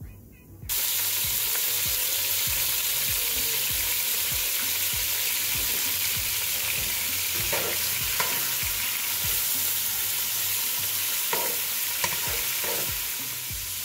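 Raw meat dropped into hot oil with whole spices in a large pot, setting off a sudden loud, steady sizzle just under a second in. A few wooden-spoon knocks against the pot come in the second half as the meat is stirred.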